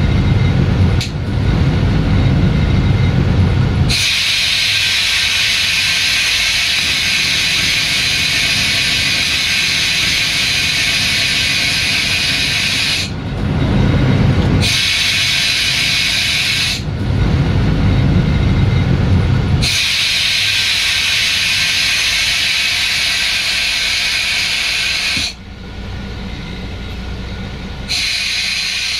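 Malaxa diesel railcar heard from the driver's cab: the engine's low rumble, broken several times by long spells of loud air hissing from the air brakes as the railcar brakes into a station.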